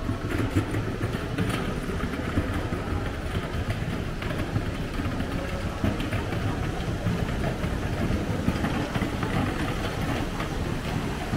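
Steady rushing, rumbling noise of water falling from an indoor waterfall into a pond.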